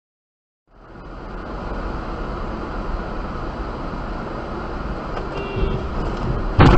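Steady road and engine noise of a moving car, heard from inside the cabin on a snow-packed street, starting about a second in after silence. Near the end there is a sudden loud thump.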